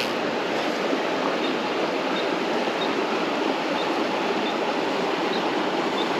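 Trout creek water running steadily over rocks, with faint high chirps repeating about once a second.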